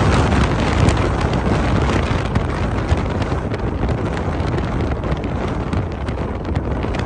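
Wind buffeting the microphone: a loud, steady rumbling roar with constant small gusts and crackles.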